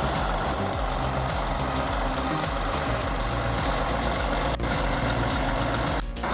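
Logging truck's engine running steadily under background music, with a brief dip in the sound near the end.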